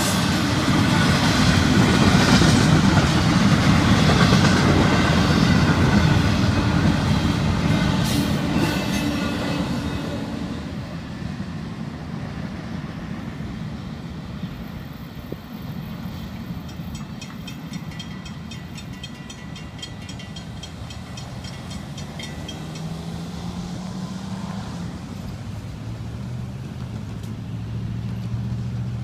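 Double-stack intermodal freight cars rolling past at close range, a loud steady wheel rumble that fades about ten seconds in as the end of the train goes by. Near the end a car drives past.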